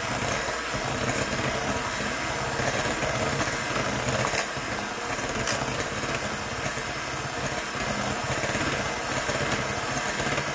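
Electric hand mixer running steadily, its beaters whirring through thick cake batter, with two brief clicks about a second apart near the middle.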